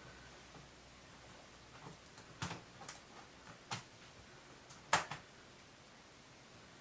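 Light plastic clicks and taps, about five spread over a few seconds with the loudest about five seconds in, as a replacement ASUS G50V laptop keyboard is turned over and its tabs are set into their slots in the laptop's case.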